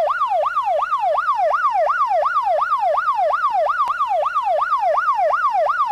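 Emergency-vehicle siren in a rapid yelp, its pitch rising and falling nearly three times a second.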